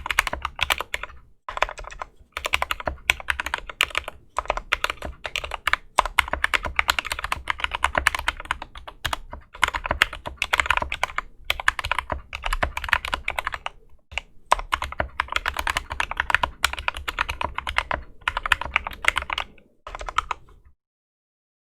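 Fast continuous typing on a Drop CTRL mechanical keyboard with linear Gateron Clear switches, lubed stabilizers and Cherry-profile keycaps: a rapid stream of key clacks with a few short pauses, and a gap of silence near the end.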